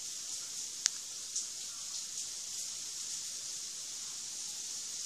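Steady high-pitched hiss, with a couple of sharp clicks about a second in.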